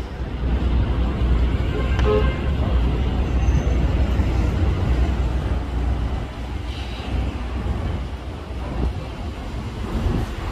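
City street traffic with vehicle engines running as a steady low rumble, and one short horn toot about two seconds in.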